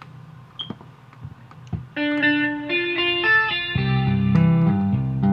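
Ten-string Chapman Stick being tapped. After about two seconds of faint hum and a few clicks, a melody line starts on the higher strings, and bass notes join underneath near the end.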